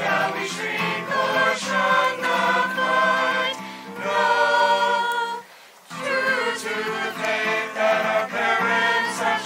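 A choir singing, with a brief break between phrases about halfway through.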